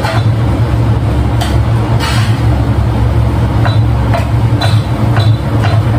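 Metal spatula scraping and knocking against a frying pan as a tuna mixture is stirred, a short scrape every second or so, over a loud, steady low hum.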